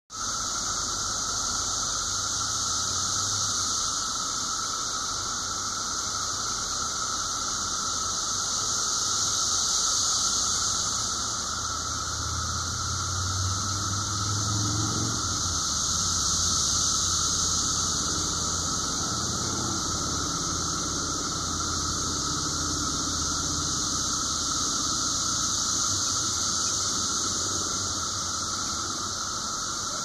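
Chorus of 17-year periodical cicadas of Brood V: a dense, continuous high-pitched drone from many insects calling together, with a steady lower whine beneath it. It swells a little twice and never breaks.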